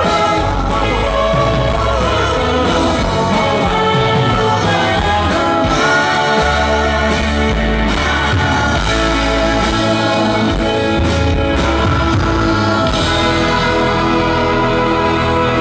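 Live rock band playing amplified music, with an electric violin over bass guitar and keyboards.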